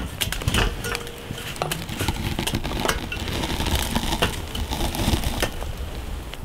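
A hunter climbing into a metal ladder tree stand: irregular light clinks and knocks of hands and gear against the steel frame.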